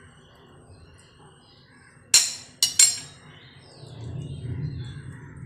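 Two sharp metallic clinks about half a second apart: a steel spoon knocking against a steel pan or bowl while banana filling is spread on a dosa. Faint birds chirp in the background.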